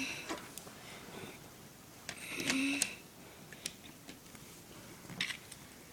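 Small plastic Lego bricks clicking and snapping as pieces are pulled off and pressed back on, in scattered sharp clicks. A short pitched vocal hum sounds about two and a half seconds in.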